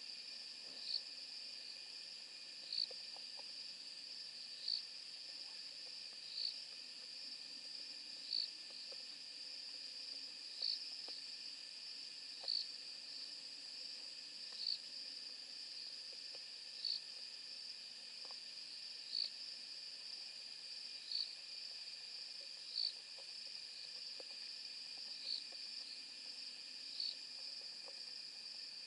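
Steady high trilling of night insects, with a short high chirp repeating about every two seconds. Faint scattered crackles come from a Cape porcupine chewing in the grass.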